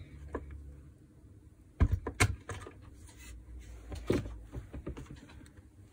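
Plastic clicks and knocks of a Makita cordless drill-driver's housing being handled and pried apart, with a cluster of sharp knocks about two seconds in and another around four seconds.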